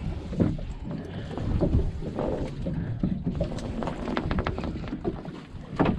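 Wind buffeting the microphone aboard a small fishing boat at sea, with a run of light clicks and taps from fishing tackle being handled in the second half.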